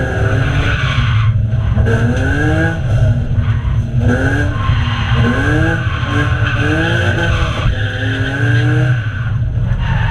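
BMW E36 328i drift car's straight-six engine revving up and down again and again while the rear tyres squeal in a continuous slide, heard from inside the stripped cabin. The tyre squeal breaks off briefly a few times between slides.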